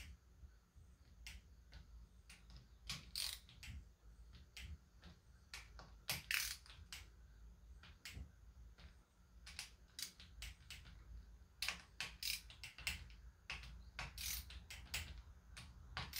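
Hand ratchet and click-type torque wrench clicking faintly as bolts on a Gen 3 Hemi engine block are run down and torqued, in short runs of sharp clicks with pauses between.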